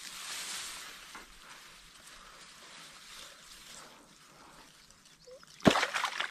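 Water splashing and weeds rustling as a hooked largemouth bass is hauled out of the mucky, weedy edge of a pond, fading over the first few seconds. A sharp loud knock or splash comes near the end, with a short flurry after it.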